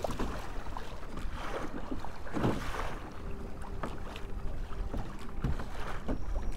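Choppy sea water splashing and slapping against a fishing kayak's hull, with wind rumbling on the microphone; the loudest splash comes about two and a half seconds in.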